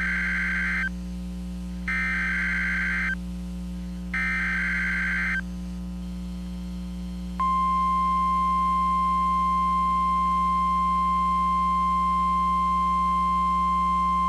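Emergency Alert System SAME header: three short bursts of warbling data screech, each about a second long. About seven seconds in, a steady 1050 Hz NOAA Weather Radio alert tone starts and holds, over a low steady hum.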